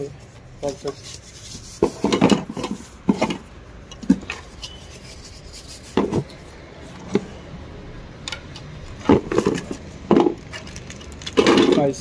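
Packing being rummaged through in a cardboard box: foam sheet and straw rustling, cardboard scraping, and light knocks of loose plastic trim parts, in irregular bursts.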